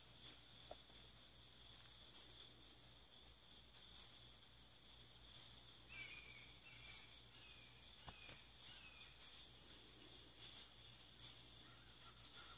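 Faint ambience of insects trilling steadily, swelling in a regular pulse about once a second, with a few short bird chirps in the middle.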